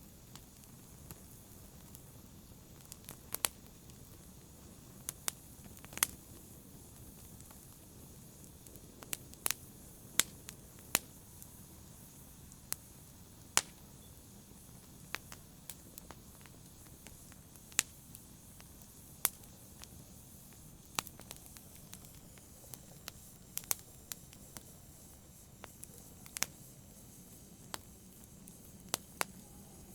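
Wood fire in a fireplace crackling: irregular sharp pops and snaps, some much louder than others, over a soft steady hiss.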